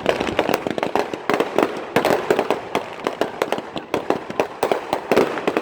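Strings of firecrackers going off in dense, irregular rapid pops and cracks that keep overlapping.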